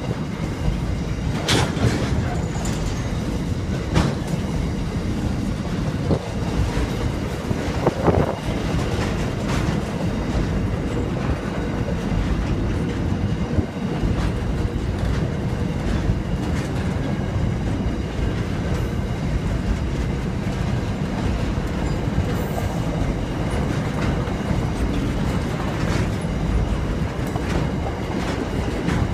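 Empty coal hopper wagons of a freight train rolling past: a steady rumble of steel wheels on rail, broken by occasional sharp clacks as the wheels cross rail joints.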